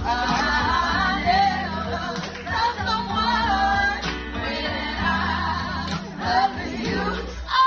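Women singing into microphones over a recorded backing track with a steady bass line, heard through the room's sound system.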